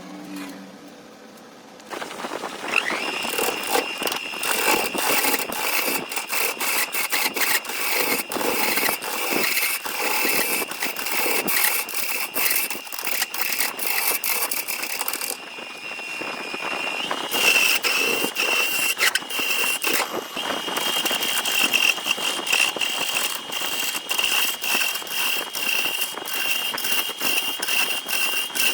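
A power tool working wood: a motor's steady high whine starts about three seconds in, under constant crackling and rattling from the workpiece. The whine steps a little higher a bit over halfway through.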